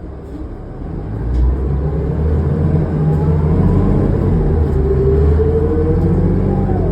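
New Flyer D40LF diesel transit bus pulling away, heard from inside: the engine rumble builds about a second in, and a whine climbs slowly in pitch as the bus gathers speed.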